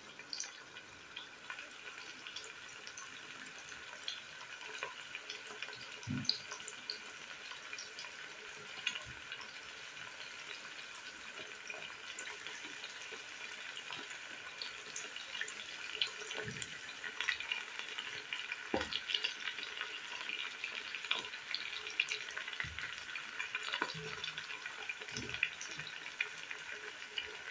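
Chicken pieces frying in oil: a steady, quiet sizzle with scattered crackles and pops, busier in the second half.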